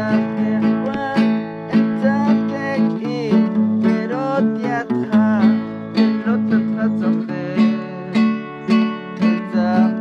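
Acoustic guitar strummed in a steady rhythm, with a man singing along to it.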